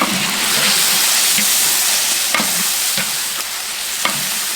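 Chicken pieces sizzling and crackling as they are stir-fried in a hot wok after soy sauce and salt have gone in. The spatula knocks against the wok about five times.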